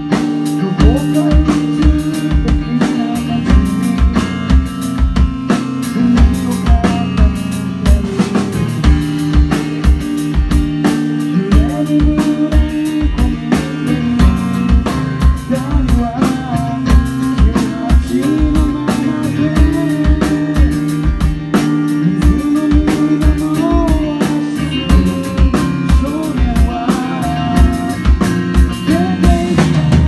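A rock band playing live: electric guitar and bass guitar chords over a drum kit with a steady kick-drum beat, and a melodic line sliding between notes at times.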